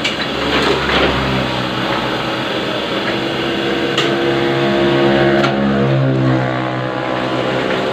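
Ryobi 520 offset printing press running, a steady mechanical clatter with a motor hum that shifts in pitch about halfway through.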